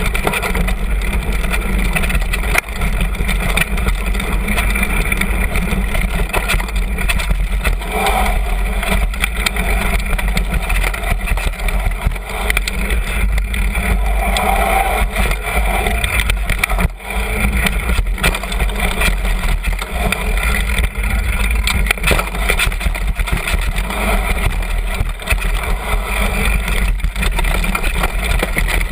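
Continuous rumble and rattle of a downhill mountain bike rolling fast over a dirt trail, picked up by a camera mounted low on the fork: knobby tyre on dirt and gravel, with frequent knocks and jolts from bumps.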